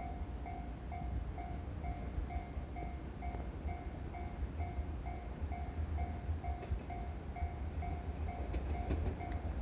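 Japanese level-crossing warning bell ringing steadily at about two dings a second, over a low train rumble. A few sharp clicks come in near the end as the sound grows slightly louder.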